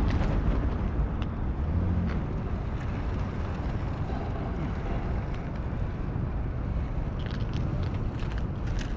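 Outdoor street noise: a steady low rumble of traffic and wind on the microphone, with a few light clicks near the end.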